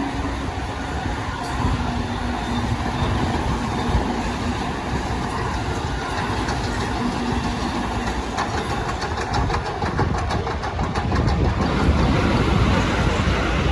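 Train passing, a steady rumble of wheels on rail with a rapid run of clacks over rail joints in the second half.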